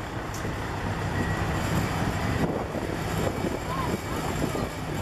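A vintage Massey-Harris 101 Junior tractor's engine running steadily at low speed as the tractor drives slowly past, with people talking in the background.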